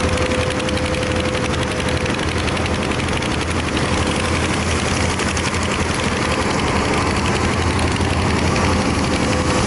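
Hydraulic excavator's diesel engine running under working load with a fast, even clatter. A thin steady whine sits over it for the first two seconds and returns near the end.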